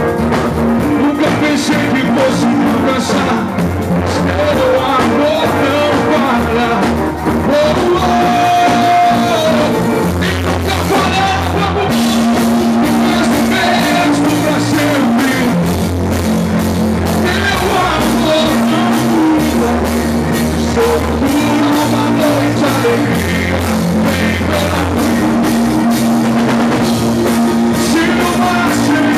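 A live gospel rock band playing: electric bass, electric guitar and drum kit, with a man singing into a microphone.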